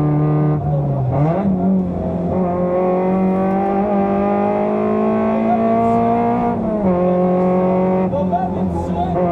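Fiat Seicento rally car's engine heard from inside the cabin, driven hard. Its pitch dips about a second in, climbs steadily for several seconds as the car accelerates, then drops sharply near seven seconds and holds.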